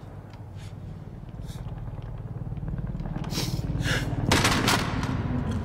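Film soundtrack: a low rumble swells steadily in loudness, and several sharp, bright bursts break in over its second half.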